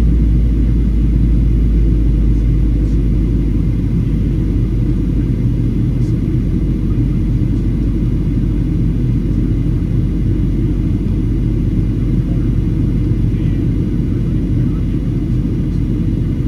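Steady low rumble of a Boeing 737-800's cabin from a window seat: the CFM56-7B engines and the airflow over the fuselage. The deepest part of the hum eases off slightly about four seconds in.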